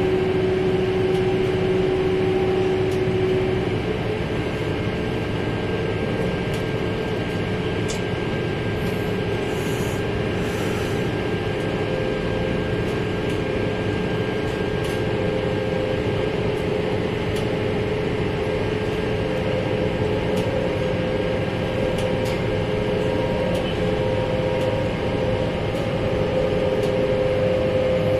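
Dockside cargo crane machinery running with a steady mechanical drone and a hum. The hum's pitch steps up about four seconds in and then holds.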